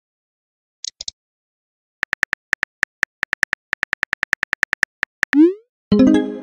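Simulated phone-keyboard typing sound effects: a quick run of identical short, high tap clicks. Then a brief rising swoosh as the message is sent, and near the end a ringing musical chord that fades.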